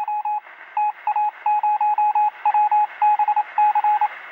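Morse-code-style radio beeping: a single steady tone switched on and off in quick, irregular groups of short and longer beeps over a thin hiss of radio static.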